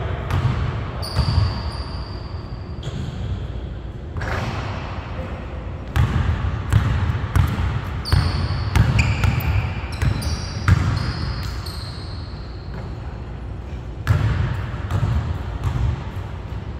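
Basketball dribbled and bounced on a hardwood gym floor, the thumps coming in runs with pauses between, along with short high squeaks of sneakers on the court.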